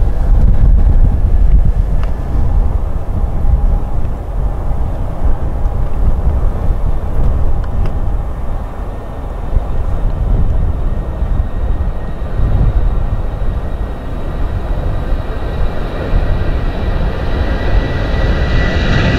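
Jet airliner engines running, a deep rumble with a thin steady whine that grows louder near the end.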